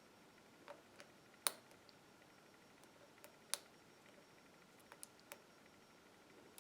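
Faint, sharp clicks of a hook pick working the standard pin tumblers of a YALE push-lock padlock, about eight in all, scattered and irregular, two louder than the rest about a second and a half and three and a half seconds in: pins being set just before the lock opens.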